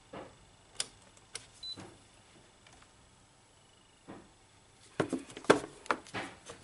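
Clicks and knocks of plastic parts being handled inside an opened De'Longhi PrimaDonna Elite espresso machine. A few scattered clicks come in the first two seconds, then a quick run of louder knocks and rattles starts about five seconds in, as the brew-unit area is handled.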